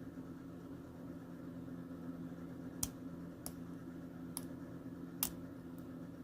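Faint metallic clicks of a hook pick working the pin stack of a 4-pin mortise lock cylinder held in a false set: a few sharp separate clicks in the second half, over a steady low hum.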